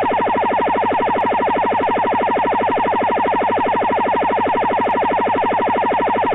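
Cuban jamming signal aimed at Radio Martí: a rapidly swinging carrier, heard as a steady, siren-like warble that repeats many times a second.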